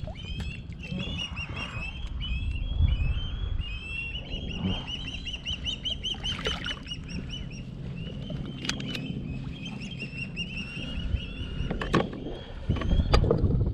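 Birds calling in a rapid, continuous series of short, high chattering notes, with a few sharp knocks about halfway through and near the end.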